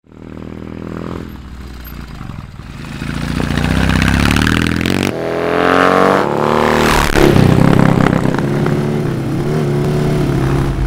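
BMW cafe racer motorcycle engine revving as it accelerates, its pitch climbing in steps. About five seconds in the sound cuts abruptly to a second stretch of higher revs that then settles to a steadier note.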